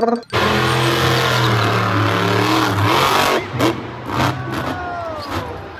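A monster truck's engine revving hard amid loud arena noise. From about three and a half seconds in there are several sharp knocks.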